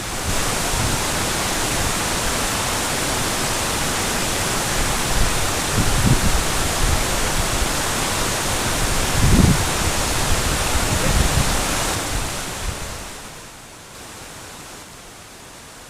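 Steady rush of water falling at a waterfall, with a few low bumps around the middle; the rush fades down about thirteen seconds in.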